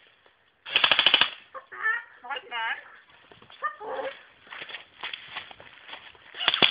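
Two short bursts of rapid full-auto fire from an airsoft gun, the first about a second in and the second near the end. Between them come high, wavering vocal squawks.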